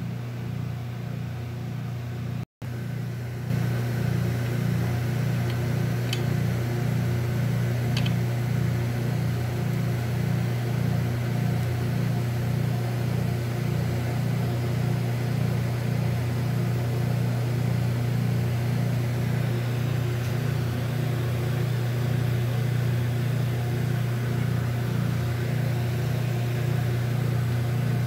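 Steady electric motor hum with a regular pulsing beat, cut off for an instant about two and a half seconds in and a little louder after; two light clicks follow a few seconds later.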